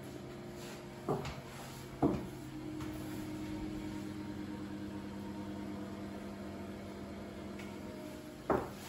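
Two sharp clicks about a second apart, then a steady low electrical hum, with another click near the end.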